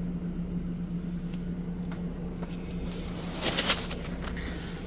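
Steady low mechanical running hum and rumble of a truck engine bay, with a brief rustle or scrape about three and a half seconds in.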